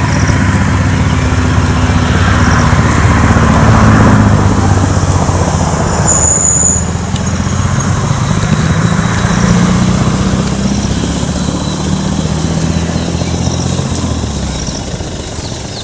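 A motor vehicle engine running, its pitch drifting slightly up and down. It is loudest about four seconds in and slowly fades after that. A brief high whistle sounds about six seconds in.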